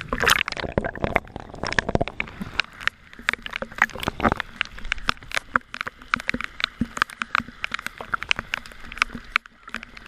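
Choppy water splashing against the camera: a dense run of irregular sharp clicks and crackles, thickest in the first couple of seconds.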